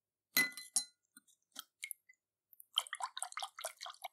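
Steel tweezers clink twice against a glass dish while lifting small steel parts out of bluing solution, followed by a few light taps. Near the end, a part is swished and splashed in a tub of cold rinse water, a quick run of wet splashes.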